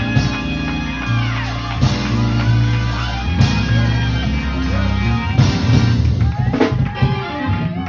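Band music with a drum kit, held bass notes and sustained instrument chords.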